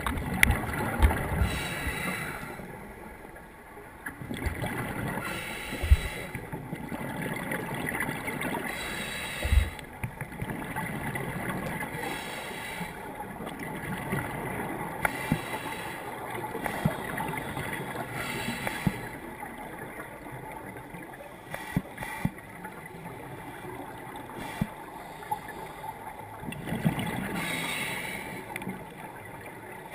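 Underwater scuba ambience through a camera housing: a diver's exhaust bubbles gurgling in surges every few seconds, with a few dull knocks against the housing in the first ten seconds.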